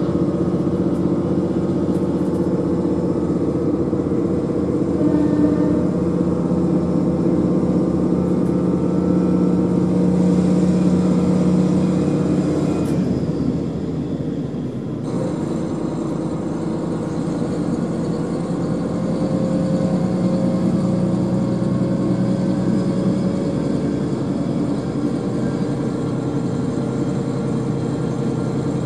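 Interior running sound of a KiHa 40 diesel railcar: the diesel engine's steady note with wheel and rail noise. About halfway through, the engine note falls away and the sound grows quieter as the railcar slows from about 40 to under 30 km/h.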